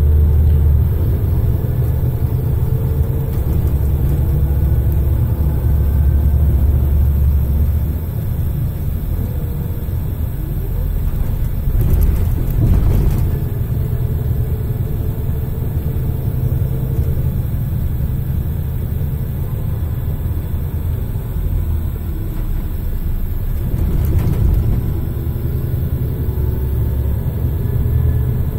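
Scania L94IB bus's DC09 diesel engine and ZF Ecomat 5HP600 automatic gearbox heard from inside the cabin on the move. A loud low engine drone that eases off about eight seconds in, with a gearbox whine rising in pitch several times as the bus pulls through the gears, and a couple of short rattles along the way.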